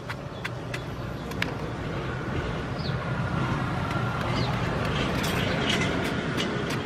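Stone pestle knocking and grinding chillies and sugar in a stone mortar, with repeated sharp clicks of stone, and of a metal spoon, against stone. Underneath is a steady low rumble that grows louder in the second half.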